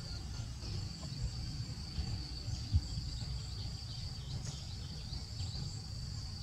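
Rural outdoor ambience: insects droning steadily at one high pitch over a low rumble, with a few short bird chirps about four to five seconds in.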